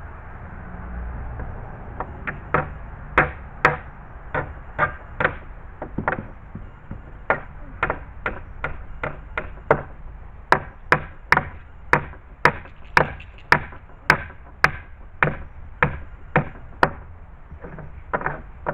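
Hammer driving nails into a wooden gate board: a long series of sharp blows, roughly two a second, starting about two seconds in, with short pauses between runs of strikes.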